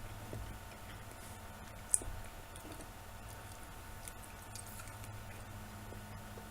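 Someone chewing a mouthful of butter-fried champignon mushrooms: soft, irregular wet mouth clicks, with one sharp click about two seconds in.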